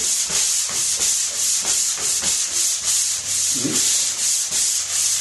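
Drywall pole sander with 220-grit sandpaper rubbing back and forth over a drywall wall in quick, even strokes, about three a second, sanding out scratches.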